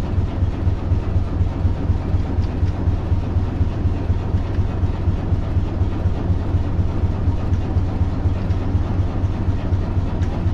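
Boat engine running steadily with a regular low chugging beat, heard from on board a moving boat.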